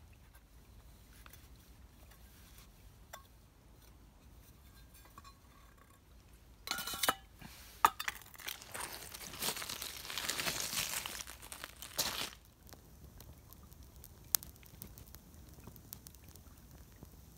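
Paper tissue being crumpled and small sticks handled on gravel: a few faint rustles, then about five seconds of loud crinkling and crackling with sharp clicks, starting about seven seconds in, and a single click a little later.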